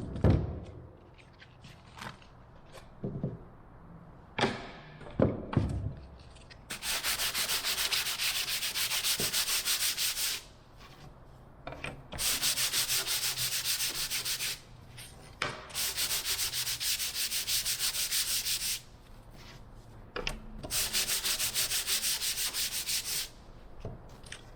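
Sanding on wood: four passes of a few seconds each, with short pauses between them. Some knocks and handling of parts come before the sanding begins.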